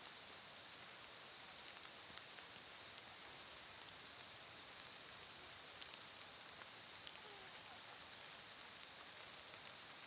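Faint light rain pattering: a steady hiss with a few sharper drop ticks, the clearest about two seconds and six seconds in.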